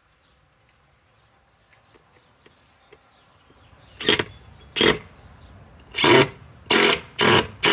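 Cordless DeWalt drill run in short trigger bursts as it bores into an OSB board: a few seconds of near quiet with faint clicks, then five brief runs of the motor, each under half a second, starting about four seconds in.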